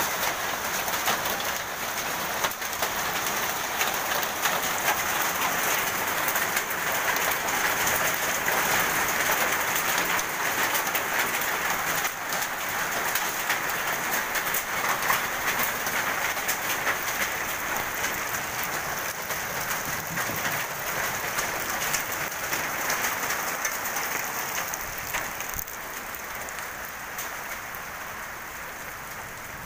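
Heavy hail mixed with rain pelting down, a dense clatter of countless small impacts, easing off somewhat near the end.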